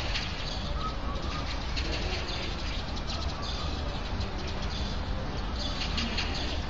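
Outdoor ambience: a steady low rumble with birds chirping on and off, the chirps clustering about halfway through and again near the end.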